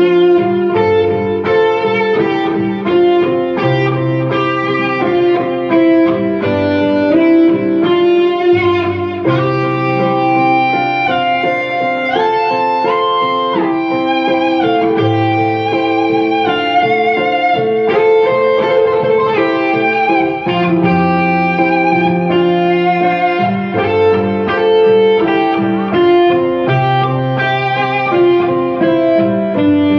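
Live instrumental rock: a lead electric guitar plays a sustained, singing melody with vibrato and pitch slides over keyboard backing and low sustained bass notes.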